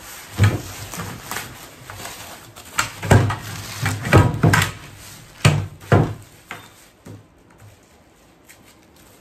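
Bubble wrap and plastic film crinkling and rustling as it is pulled open off steel linear rails, with knocks and thumps of the wrapped rails being rolled on the bench. Busy for about the first six seconds, then dying down to soft occasional rustling.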